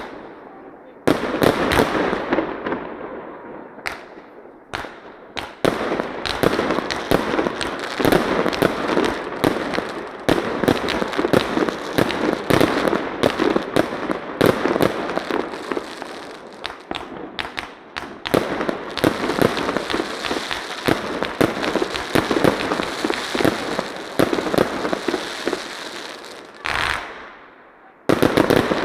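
Fireworks going off one after another: a dense, loud run of bangs and crackling that starts about a second in and thins to a short lull near the end.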